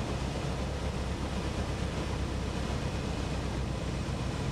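Super Patriot STOL Cub's piston engine and propeller running steadily on a slow landing approach just above the grass, heard from outside under the wing with a constant rush of wind over the microphone.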